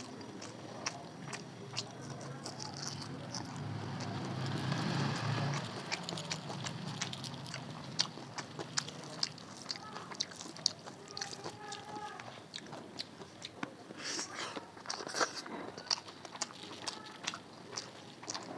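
Close-miked chewing and mouth sounds of a person eating rice and curry, with frequent short wet clicks and smacks.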